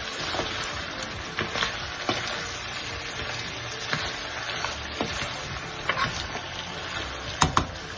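Chicken, onions and tomatoes sizzling in a metal pan while a spatula stirs them, scraping and knocking against the pan now and then. Two sharper knocks come near the end.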